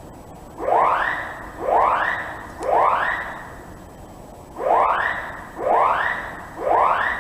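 Building fire alarm sounding a rising whoop tone: three whoops about a second apart, a short pause, then three more. It is a false activation of the alarm system.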